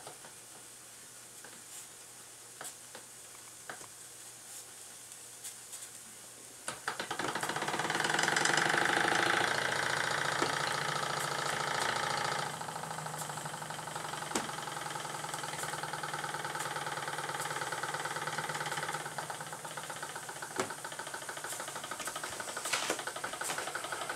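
Late-1930s Jensen No. 25 toy live-steam engine running with a fast, even mechanical clatter. About seven seconds in it suddenly gets louder and busier, then drops back a little near twelve seconds in and runs on steadily.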